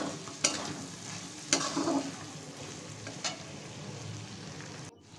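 Brinjal frying in oil in a metal wok: a steady sizzle, with a metal spatula scraping the pan about half a second, a second and a half and three seconds in. The sound drops out briefly near the end.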